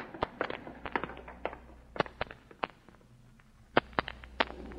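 Radio-drama sound effect of footsteps on pavement: several people walking, a run of sharp, irregular heel clicks that thin out in the middle and pick up again near the end.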